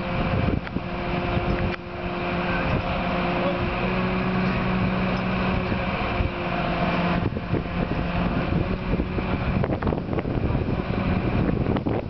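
Crane engine running steadily as it lowers a steel framework, with its pitch shifting slightly a couple of times. A few sharp knocks near the end.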